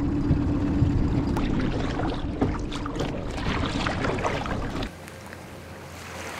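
Inflatable dinghy's outboard motor running steadily at speed, with water splashing against the hull. About five seconds in it cuts to a quieter, even wash of small waves on a beach.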